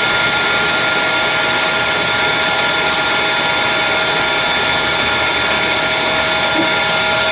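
Bee vacuum running steadily: a constant motor hiss with a fixed high whine over it.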